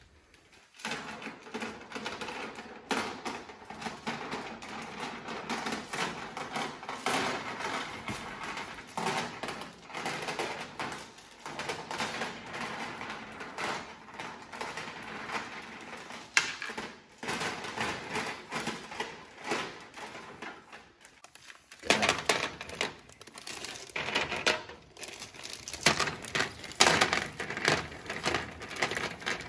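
Clear decorative fireplace crystals being poured from a plastic bag into an electric fireplace's ember bed: a dense stream of small clicks and rattles as the pieces tumble onto each other, with the bag crinkling. The clicks get louder and more separate about two-thirds of the way in.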